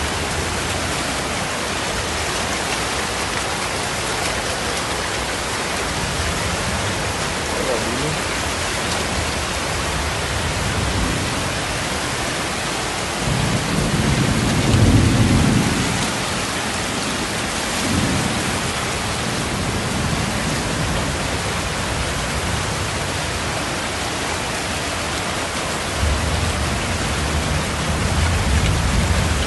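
Steady hiss of heavy rain and rushing floodwater in a street during a tropical storm. Low rumbles come and go, loudest about halfway through and again near the end.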